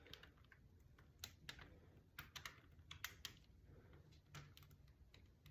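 Near silence broken by faint, irregular light clicks and taps, about a dozen scattered through it, over a low hum.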